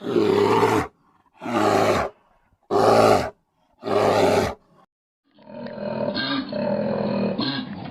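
A big cat roaring: four loud roars of under a second each, about a second apart. About five seconds in, a continuous, rougher animal call starts and carries on.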